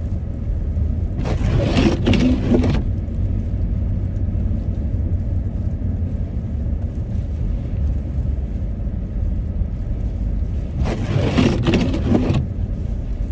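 A car driving on a snowy road, heard from inside the cabin: a steady low rumble, with two louder whooshes of about a second and a half each, one a second in and one near the end.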